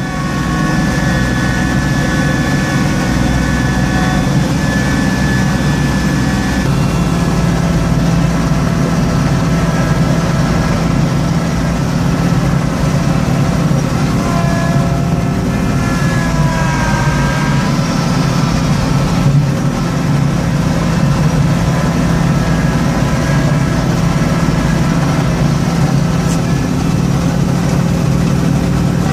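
Small Kubota tractor's engine running steadily under load, driving a front-mounted snowblower that is throwing snow, heard from inside the cab. The engine's pitch wavers briefly about halfway through.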